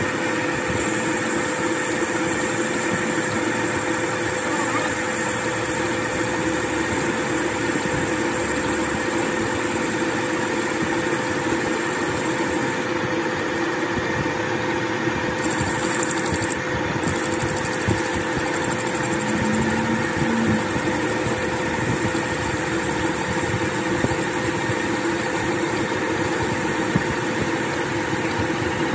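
Metal lathe running steadily, turning a steel truck drop spindle in its chuck, with a constant hum from the machine.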